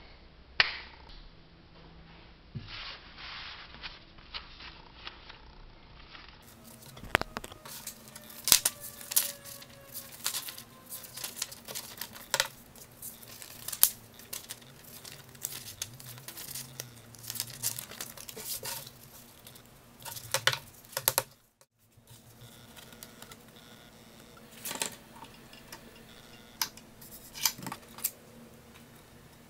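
Sheets of printer paper being handled and folded into signatures: rustling, sliding and creasing, with scattered sharp taps and clicks.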